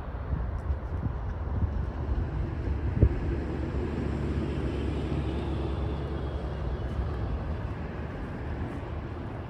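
Low steady rumble with a distant engine hum that swells and fades in the middle, and a single knock about three seconds in.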